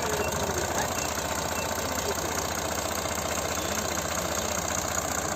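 A heavy machine's diesel engine running at a steady speed, with an even, rapid chugging throughout.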